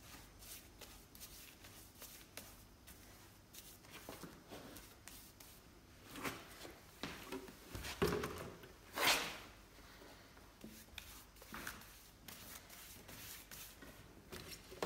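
Irregular rustling and scuffing as gloved hands wipe wet grain-enhancer solution over the weathered wooden bench, with a louder scuff about nine seconds in.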